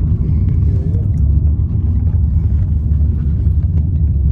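Low, steady rumble of a car driving, heard from inside the cabin.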